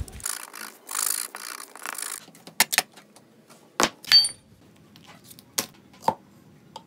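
Rubbing and scraping on the workbench for about two seconds, then a run of sharp clicks and taps of small tools and objects being set down, one with a short metallic ring.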